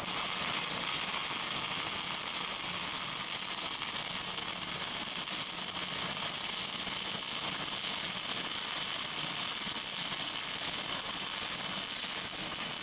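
Flux-cored wire-feed welding arc laying a fill pass in a joint between steel angles: a steady, high-pitched hissing crackle that starts abruptly as the arc is struck and holds even throughout.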